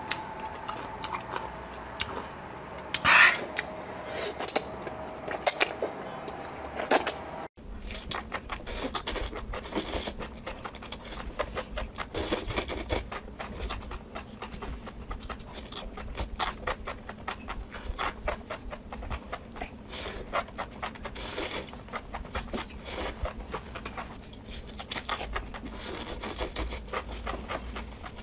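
Close-miked eating sounds: chewing and biting, with many short wet clicks and crackles.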